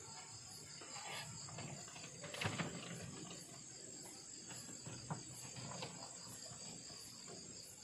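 Insects chirring steadily at a high pitch, with a higher pulse about twice a second. A few soft knocks are heard over it.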